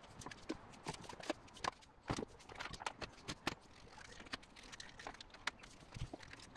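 Faint, irregular light clicks and knocks as blue plastic bench clamps are fitted into the holes of a workbench top.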